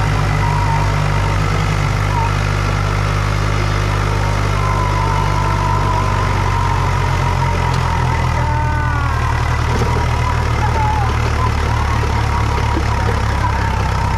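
Diesel engines of a Mahindra Thar 4x4 and a Swaraj 735 tractor running hard and steady under full load as the two pull against each other on a chain, with the Thar's tyres spinning in loose dirt.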